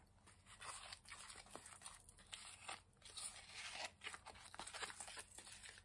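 Faint, irregular scraping and crunching of a wooden lolly stick stirring a thick paste of filler, water and green acrylic paint.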